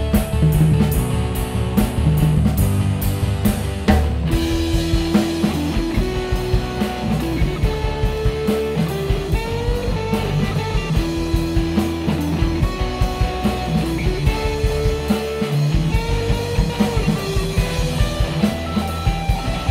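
Rock band playing an instrumental passage: an electric guitar plays a lead line of held, gliding single notes over bass and a steady drum kit beat. About four seconds in a cymbal crash marks the start of a new section.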